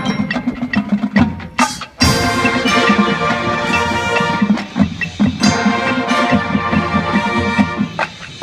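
Marching band playing: brass with drums and mallet percussion. There are short breaks between phrases, just before two seconds in and again around five seconds.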